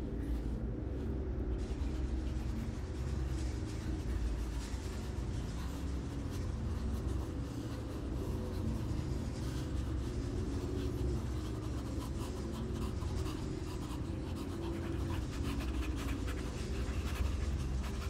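A steady low rumble with scattered scratchy crackles and clicks over it from about three seconds in.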